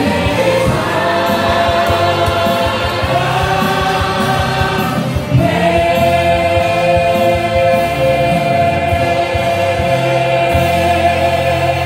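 Several voices singing a wedding song over accompaniment in long held notes. About five seconds in they move to a new chord and hold it.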